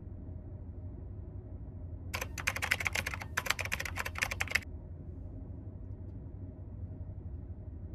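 A steady low rumble, with a dense run of rapid, sharp clicks like typing on a keyboard starting about two seconds in and lasting about two and a half seconds.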